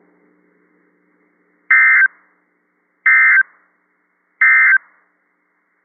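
NOAA Weather Radio SAME end-of-message data bursts: three short digital tone bursts about 1.3 seconds apart, signalling the end of the flash flood warning broadcast.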